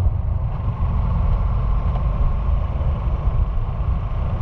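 Car driving along a street, heard from inside: a steady low rumble of engine and road noise.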